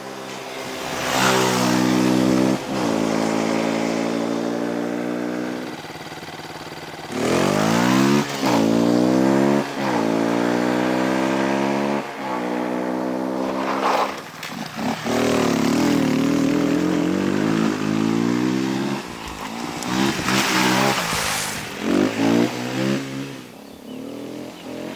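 Beta RR 125 LC four-stroke single-cylinder enduro motorcycle accelerating hard through the gears. The engine note climbs and drops at each upshift, over two runs, then holds steadier before a few short throttle blips near the end.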